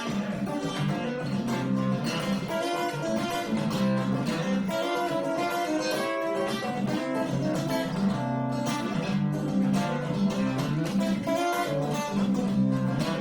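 Acoustic guitar played steadily in an instrumental break of a song, busy picked and strummed notes with no singing.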